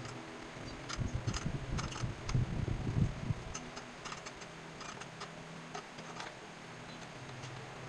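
A wrench tightening the battery hold-down bracket screw: irregular light metallic clicks and ticks, with a few low knocks from handling the bracket in the first few seconds.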